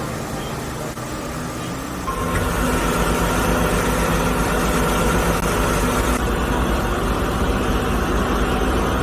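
A vehicle engine running steadily, getting louder at about two seconds in and then holding steady.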